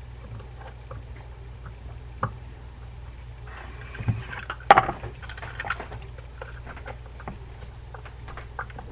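Small metal clicks and taps of a screwdriver working the handle set screw on a vintage Ocean City 6051 saltwater reel as the reel is handled, with one louder knock about five seconds in. A steady low hum runs underneath.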